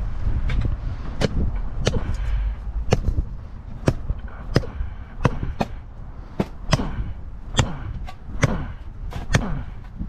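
Machete blade chopping into roots and dirt with repeated sharp strikes, roughly one or two a second, some coming in quick pairs.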